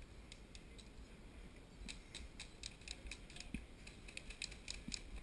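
Faint, rapid clicking of distant airsoft guns firing, a few shots at first and then about four or five a second from about two seconds in.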